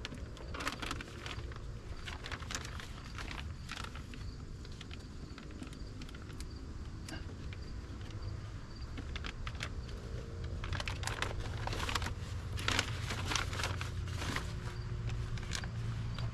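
Plastic moisture-barrier sheet being peeled off a car's inner door, crinkling and crackling as it pulls away from its sticky sealant. It comes in two bouts: one about a second in, a second from about ten seconds in.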